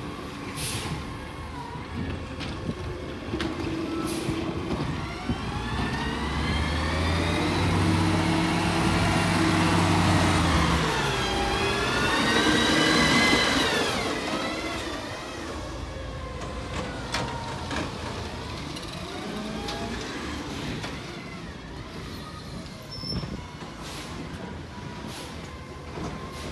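McNeilus ZR automated side-loader garbage truck on a Crane Carrier LET2 chassis driving past. Its whine rises in pitch and grows louder as it comes closer, drops sharply in pitch as it passes about 13 seconds in, then fades.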